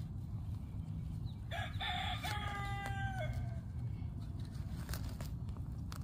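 A rooster crows once, about a second and a half in: a long held call that drops at the end. A spade cutting into garden soil makes a few short scrapes and knocks.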